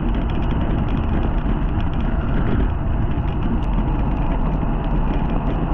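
Steady rushing wind and road noise from a road bicycle ridden along a rain-wet path, picked up by a handlebar-mounted camera: tyres on wet pavement and wind buffeting the microphone.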